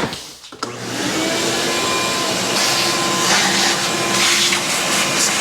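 Vacuum cleaner starting up about a second in and running steadily, its pitch and hiss shifting briefly a few times as it sucks at the work.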